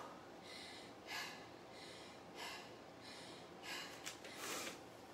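A woman breathing hard, catching her breath after a high-rep exercise set, with about five audible breaths roughly a second apart.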